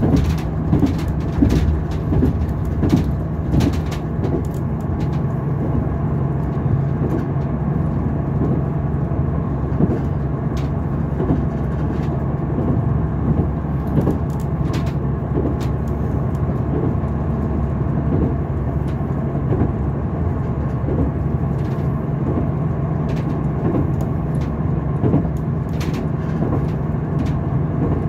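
Interior of a diesel passenger train running at speed: a steady engine drone and rumble of the carriage, with irregular clicks and knocks from the wheels on the track.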